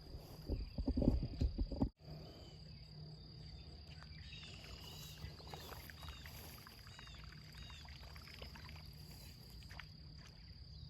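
Loud knocking and rumbling handling noise for about two seconds that cuts off suddenly, followed by quiet outdoor ambience: a steady high insect drone over a low hum, with a few short chirps.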